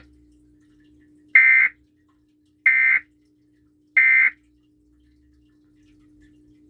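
Emergency Alert System End-of-Message (EOM) data bursts: three short, identical buzzy digital bursts about 1.3 seconds apart, the signal that marks the end of the EAS test. A faint steady hum runs underneath.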